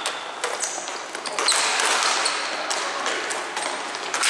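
Ball hockey play: sharp clacks of sticks striking the ball and the rink floor, scattered irregularly, with a few short high squeaks over a steady background noise of the hall.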